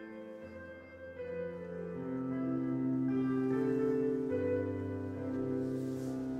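Stage keyboard playing slow, held piano chords as the introduction to a church song, the chords changing every second or two.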